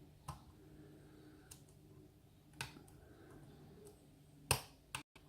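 Lock pick working the pins of a kik cylinder held in a false set: a few sharp metal clicks, the loudest about four and a half seconds in, over a faint steady hum.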